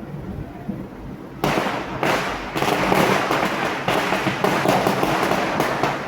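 Diwali fireworks and firecrackers going off: a low rumble, then about a second and a half in a sudden, dense run of rapid crackling pops that keeps up.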